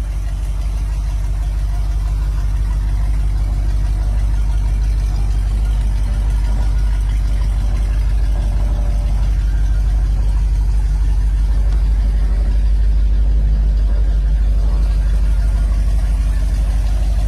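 A car engine idling steadily with a deep, even rumble.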